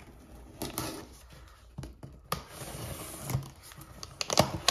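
Folding knife blade slitting the packing tape on a cardboard box, with irregular scrapes, taps and short tearing strokes of tape and cardboard.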